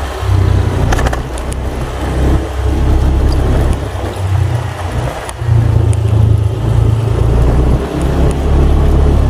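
Motorcycle engine running while riding along a village lane, under a heavy low wind rumble on the microphone, with a few light knocks. It grows louder from about halfway through.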